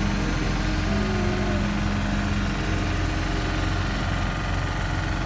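Engine of a dredging crane running steadily at a constant pitch while it holds a loaded clamshell grab on its cables.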